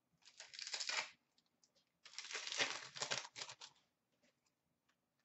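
Trading-card pack wrapper being torn open and crinkled in two bursts: a short one just after the start and a longer one from about two seconds in, followed by a few faint clicks.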